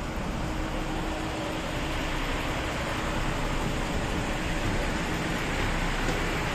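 Nagaragawa Railway Nagara 3 type diesel railcar idling at a standstill, its engine giving a steady running hum.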